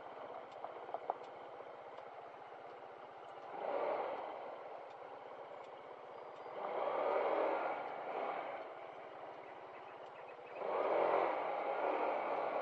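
Motorcycle engine running at low speed over a gravel road, with tyres scraping and crunching on the loose surface. The noise swells three times, about four, seven and eleven seconds in.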